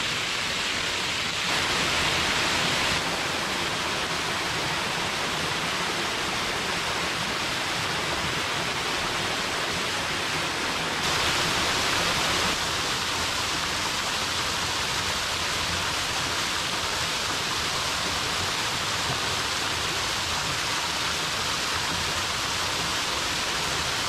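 Many thin streams of water pouring off the top of a stone wall and splashing into a shallow pool, a steady rushing patter. It grows briefly a little louder and brighter twice, about two seconds in and again about eleven seconds in.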